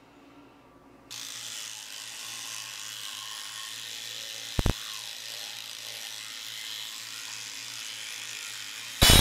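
Electric toothbrush switched on about a second in and buzzing steadily against the teeth during brushing, with two sharp clicks near the middle. Near the end, a sudden, very loud burst of noise cuts in.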